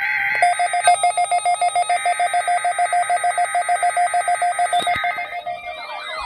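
Emergency Alert System weekly-test alarm tone: a loud electronic tone pulsing rapidly, about nine times a second, like a telephone ringer, over steadier higher tones. Near the end it fades and a rising-and-falling, siren-like wail begins.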